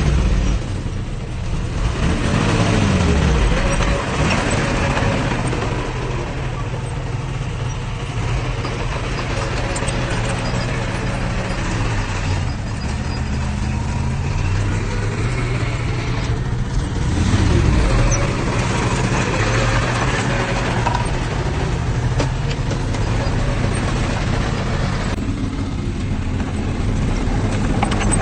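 Heavy diesel engine of a small crawler bulldozer running under load as it pushes soil, its engine speed dipping and recovering twice.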